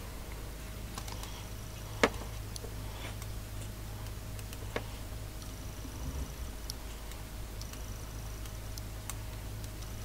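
Handling noise from yarn being knotted and a metal crochet hook being picked up at a wooden table: a few scattered light ticks and one sharp click about two seconds in, a smaller one near five seconds, over a steady low hum.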